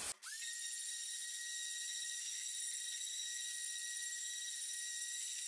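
Electric random orbit sander switched on, its motor whine rising quickly to a steady high pitch with a hiss above it. The sander is taking dried gold spray paint off the face of the carved walnut board.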